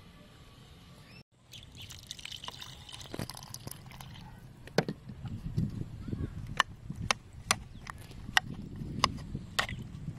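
Water sloshing and trickling in a coconut-shell bowl as soaked fruit is worked by hand and stirred. From about halfway on come about seven sharp clicks of a coconut-shell ladle knocking against the bowl.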